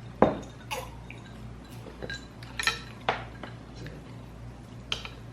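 Utensils and dishes clinking at a hot pot meal: a handful of short, sharp clinks and clatters, the loudest about a quarter second in, over a low steady hum.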